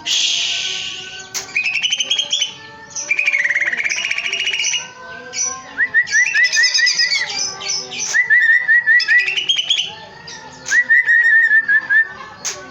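Caged cucak ijo (green leafbird) singing loudly and continuously: fast chattering trills alternating with quick runs of short rising whistled notes, about eight a second. A few sharp clicks come through between phrases.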